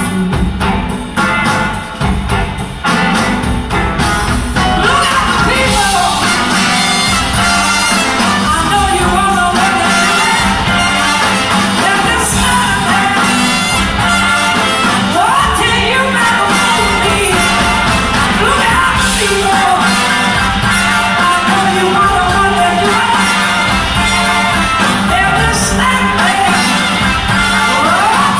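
Live blues-rock band with electric guitars, drums and a horn section playing, heard from the audience in the hall. The first few seconds are short choppy band stabs, then the full band plays on continuously.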